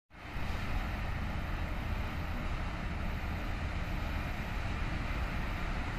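Wind buffeting the microphone: a steady low rumble with an even hiss above it.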